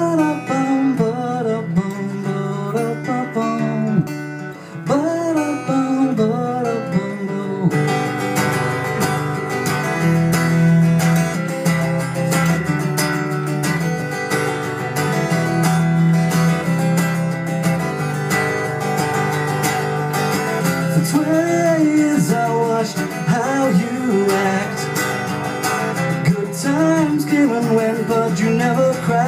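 Acoustic guitar strummed in a steady rhythm, played live as an instrumental break. A man's voice sings over it during the first several seconds and again near the end.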